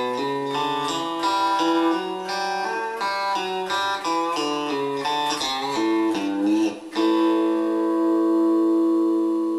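Electric guitar playing a slow single-note chicken-pickin' lick in A, open strings ringing against fretted notes and pull-offs, a few notes a second. About seven seconds in it settles on several notes held together, ringing.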